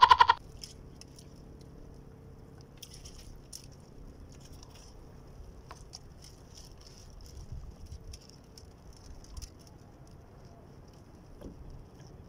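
Faint scattered ticks and rustles of a fishing hand line being pulled in and coiled by hand. A loud wavering animal bleat cuts off just after the start.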